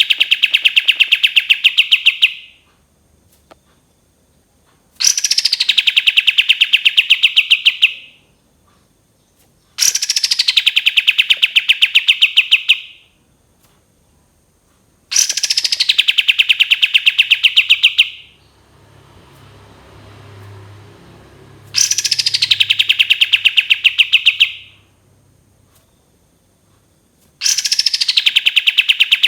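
Kapas tembak songbird singing its long 'tembakan' bursts, repeated about every five to six seconds: each starts with a falling whistle and runs into a rapid string of high notes lasting about three seconds. A faint low rumble sounds between two bursts about two-thirds through.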